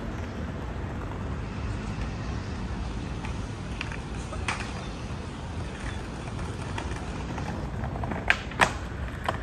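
Skateboard wheels rolling over brick paving with a steady low rumble, then a few sharp clacks of the board near the end.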